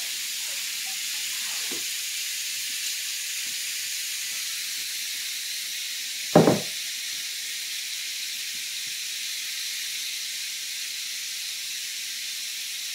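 Steady high hiss of chopped bacon sizzling in a hot skillet. A single loud clunk comes about six and a half seconds in, as the stainless steel pot is handled.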